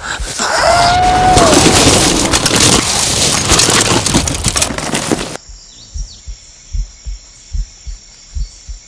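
Horror-film sound design: a loud, crackling, crashing burst of noise with a brief wavering tone in it lasts about five seconds, then cuts off suddenly. After it come low heartbeat-style double thumps, a pair about every 0.8 s.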